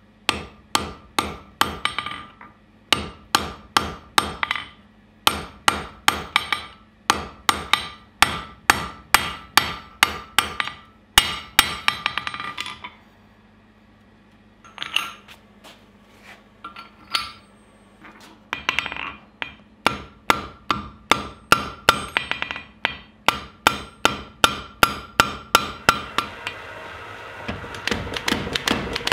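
Blacksmith's hand hammer striking hot steel on an anvil: runs of quick ringing blows, about two to three a second, broken by short pauses. Near the end a steady rushing noise comes in under the blows.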